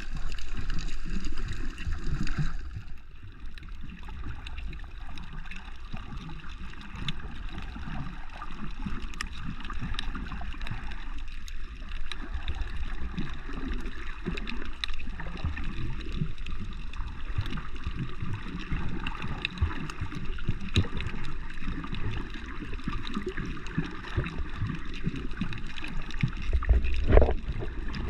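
Water gurgling and sloshing around the camera while snorkeling, with frequent faint clicks and crackles. A hiss in the upper range drops away about two and a half seconds in, and a louder surge of water comes near the end.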